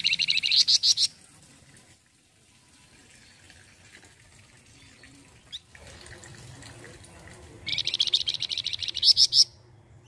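Caged flamboyan songbird singing a rapid trill of quickly repeated notes, twice. The first trill lasts about a second at the start; the second, near the end, lasts nearly two seconds and grows louder toward its close.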